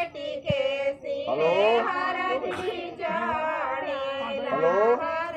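Several women's voices singing together, the overlapping voices sliding and bending in pitch, typical of women singing traditional songs during a haldi ceremony.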